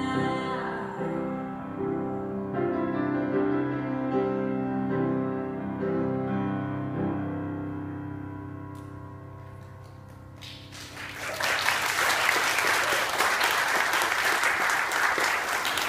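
Grand piano playing the final chords of a song, which ring out and die away over the first ten seconds. Then an audience breaks into applause that swells quickly and keeps going.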